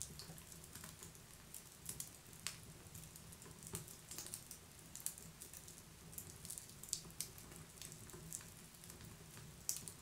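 Campfire of burning wood crackling: irregular sharp pops and snaps, some louder than others, over a faint low steady rumble. One of the loudest pops comes near the end.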